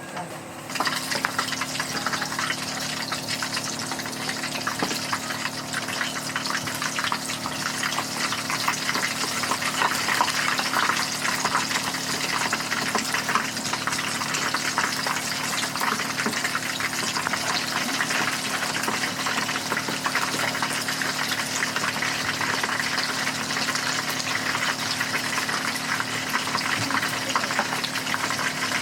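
Food sizzling and crackling in hot oil in a frying pan, setting in suddenly about a second in and holding steady, over a steady low hum.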